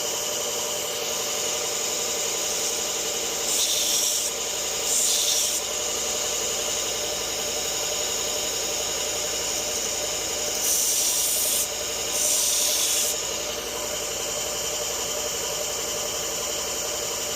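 A power sharpening grinder running steadily, with four short hissing grinding passes as a Leatherman multi-tool blade's edge is drawn across the abrasive: two about four seconds in and two more about eleven seconds in.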